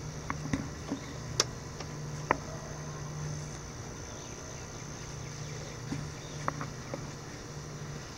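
Light handling noises while paper shop towels wipe spilled oil from inside an outboard's lower cowling: scattered short clicks and taps, the loudest about one and a half and two and a half seconds in, over a steady low hum and a steady high hiss.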